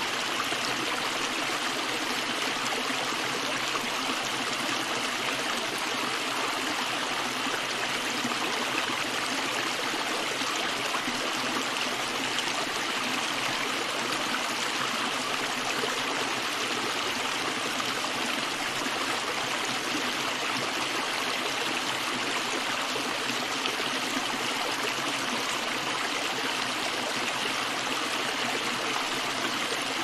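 Small rocky stream spilling over a low ledge between stones: a steady rush and trickle of running water.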